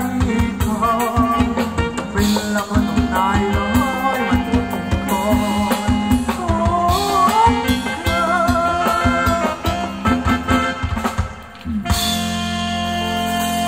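Live band playing Thai ramwong dance music, with a steady drum-kit beat under a lead melody. About twelve seconds in the beat stops and the band holds a final sustained chord.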